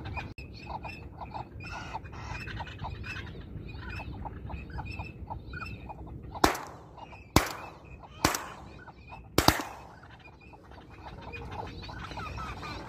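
Ducks quacking in quick, repeated calls, then four shotgun shots fired in quick succession, less than a second apart, each crack trailing off in an echo; the shots are the loudest sounds.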